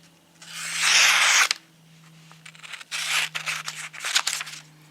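Folding knife blade slicing through paper: one long cut about a second in, then several short rasping cuts around three to four seconds in, from a nicked edge that needs sharpening.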